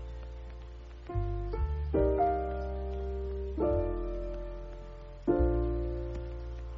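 Background music: a piano playing slow chords with a deep bass. About four chords are struck, each ringing and fading before the next.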